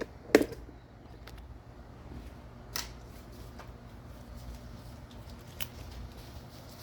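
A few sharp clicks and taps of hand tools being handled while starting to loosen hex-head bolts on an engine. The loudest comes about a third of a second in, with others near three and five and a half seconds, over a low steady hum.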